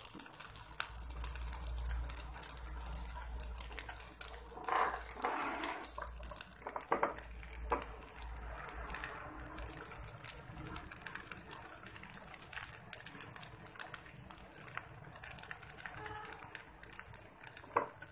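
Pot of rice pulao simmering over a low gas flame: the last of the liquid bubbling and crackling under the rice as a faint, steady hiss with many small pops. This bubbling is the sign that the rice is ready to be covered and steamed.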